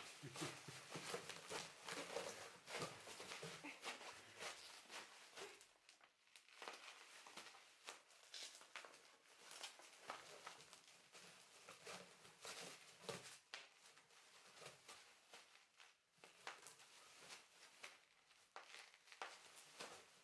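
Faint, irregular crackling and tapping of packaging being handled, busiest in the first few seconds and sparser after.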